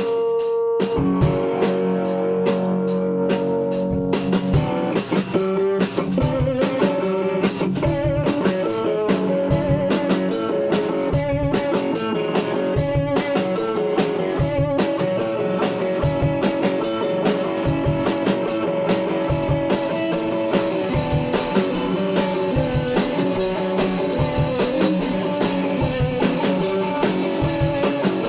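Blues-rock band with electric guitar and drum kit playing a song on a steady drum beat. The playing comes in about a second in after a single held note. The instruments are drastically out of tune.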